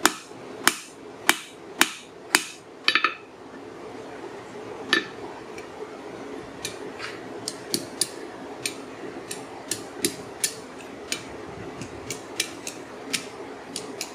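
Ball-peen hammer striking a hot rail spike on an anvil: six hard, ringing blows in the first three seconds, one more about five seconds in, then a run of lighter taps about two a second. A steady low hum runs underneath.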